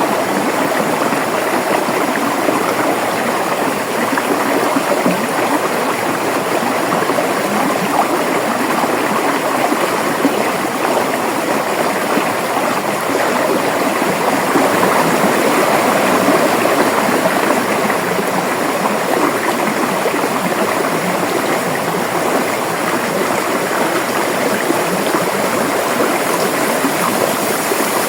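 River water flowing over rocks, a steady rushing and babbling stream.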